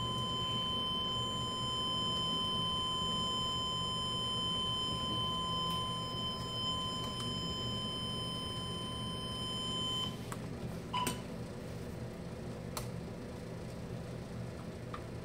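Zimmer ATS 2000 tourniquet machine sounding a steady, high-pitched alarm tone while it shows its AL2 FAIL error, a fault the technician traces to a pressure sensor. The tone cuts off about two-thirds of the way through as the unit is switched to standby, followed by a short beep and a few light clicks.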